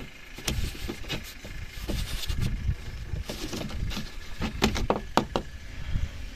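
Hands working loose plastic car trim and its clips: a run of sharp clicks and knocks over a low rumble.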